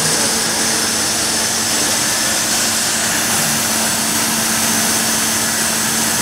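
Hyundai-WIA WH 63 horizontal machining centre running under power: a steady high hiss over a constant low hum, with no change through the stretch.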